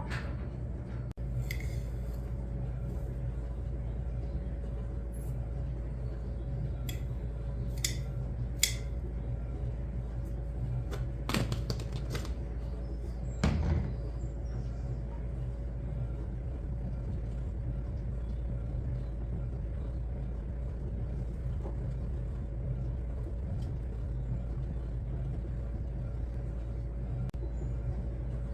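Steady low hum in a kitchen, with a faint constant tone through it, and a scattering of short clicks and knocks from utensils and cookware, the loudest clustered in the middle.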